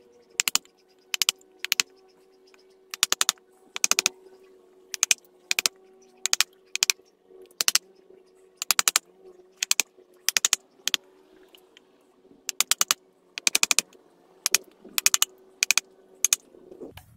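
Wooden baton knocking on the spine of an LW Knives Seeker II fixed-blade knife as it cross-batons a V-notch into an apple-wood stick. The sharp knocks come in short clusters, one or two clusters a second, with brief pauses between.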